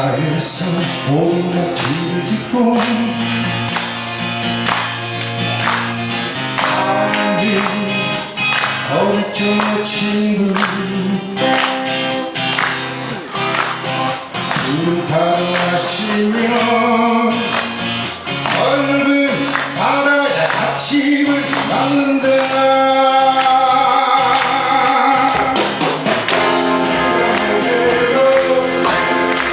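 Amateur band playing a song live, with singing over the instruments.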